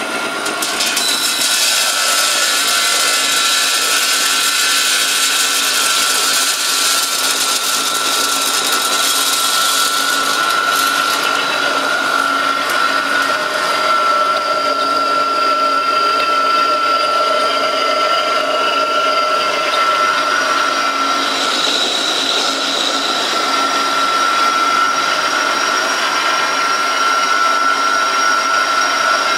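A vertical colloid-mill peanut grinder running steadily as it grinds peanuts into peanut butter: a continuous electric-motor and mill drone with a constant high whine. A brighter hiss over it eases off about ten seconds in.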